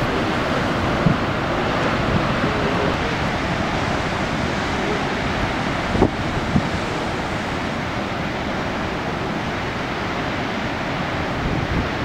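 Heavy ocean surf rumbling steadily, with wind buffeting the microphone and two low thumps, about one second in and again around six seconds.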